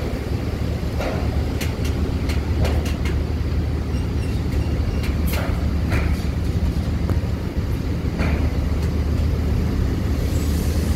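Diesel engine of a Mercedes-Benz OH 1526 bus running low and steady as the bus creeps forward toward a ferry loading ramp, with several sharp clicks and knocks scattered over it.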